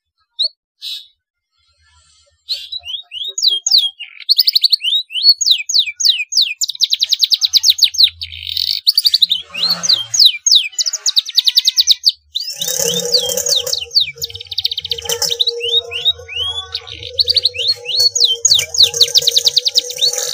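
Domestic canary singing, with song phrases copied from the black-throated canary (blackthroat). A few short chirps come first; from about two and a half seconds in it runs into a continuous song of rapid trills and quick pitch sweeps. About halfway through, a steady lower tone joins underneath.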